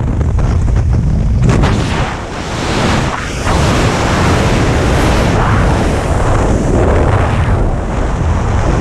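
Loud wind rushing and buffeting over the helmet camera's microphone in wingsuit freefall, a heavy rumbling roar that eases briefly about two seconds in.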